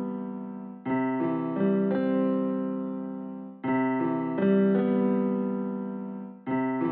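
Background music: slow piano chords, a new chord struck about every three seconds and left to ring out and fade, with a few single notes between.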